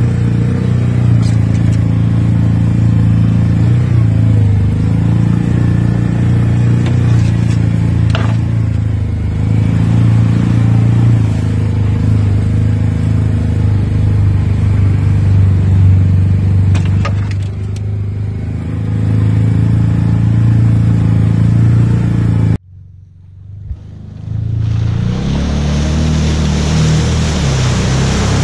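Side-by-side UTV engine running steadily at part throttle, heard from the seat of the machine, with a few light knocks. About three quarters of the way through the sound cuts out abruptly. It comes back as a Can-Am side-by-side's engine revving up and down as it churns through deep mud and water, over a splashing hiss.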